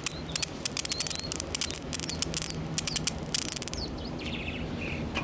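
Tube TV's flyback making high voltage: irregular sharp crackling of a high-voltage spark for about four seconds, stopping near the end, over the thin, steady, very high-pitched whine of the horizontal output running at the horizontal frequency. The spark and whine are the sign that the flyback is working.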